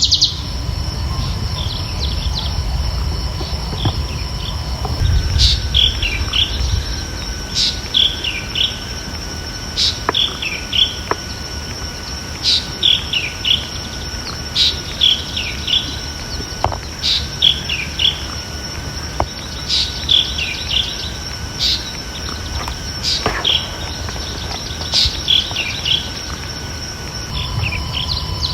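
Birds chirping: a bird repeats a short phrase of quick, high, falling chirps about every two and a half seconds, over a steady high whine and a low rumble.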